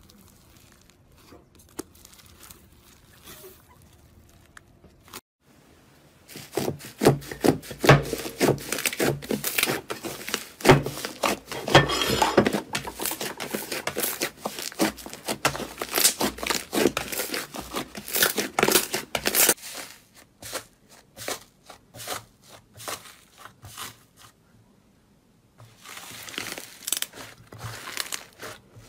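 Hands kneading and pulling apart thick slime, making a dense run of crackling, popping clicks. It starts quietly, becomes loud and crowded a few seconds in, then thins out, with a short pause before a new batch of clicks near the end.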